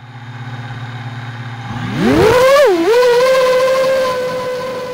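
Five-inch FPV quadcopter's Emax Eco 2306 brushless motors humming low at idle, then spinning up in a rising whine about two seconds in as the throttle is pushed for takeoff. The whine dips once and settles into a steady pitch.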